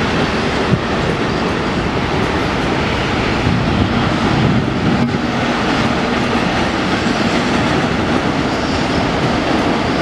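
Train rolling along the rails, a steady loud clatter of wheels and rolling stock.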